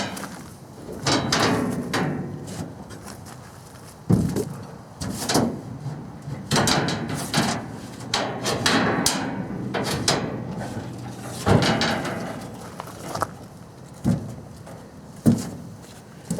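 Irregular knocks, clunks and scraping of sawmill parts and packing being handled and moved about, a dozen or so separate bumps with rustling between them.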